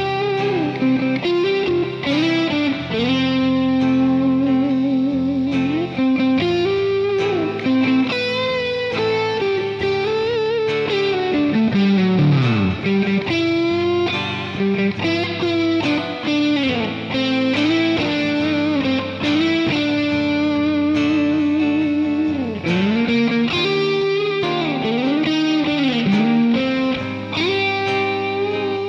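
Instrumental music led by a guitar melody, with held notes that waver in vibrato and notes bent up and down, including a long downward slide about twelve seconds in, over a steady backing.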